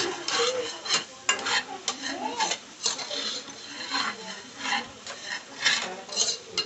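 A spoon stirring chopped okra and vegetables in a saucepan, scraping against the pan in repeated irregular strokes.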